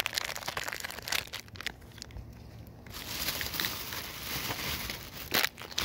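Foil trading-card booster pack wrapper crinkling and tearing as it is ripped open and crumpled in the hand, with a sharp crackle near the end.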